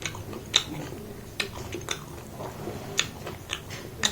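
Close-miked chewing of food, with irregular sharp, wet mouth smacks and clicks, about six over the span.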